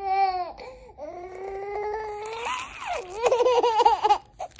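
A baby laughing with delight: long drawn-out squealing laughs, then quicker bursts of laughter near the end.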